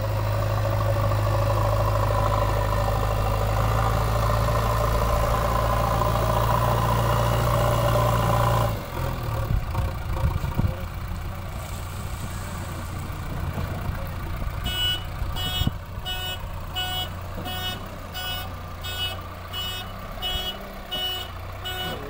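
JCB 3DX backhoe loader's diesel engine running hard under load, then dropping suddenly to a lower, uneven run about nine seconds in. From about fifteen seconds a reversing alarm beeps about twice a second as the machine backs up.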